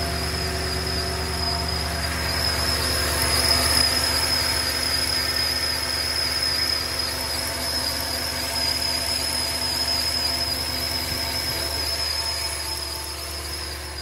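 2014 Toyota Tundra's 5.7-litre V8 running with a steady high-pitched squeal from the drive belt system, a squeal that is traced to the drive belt tensioner.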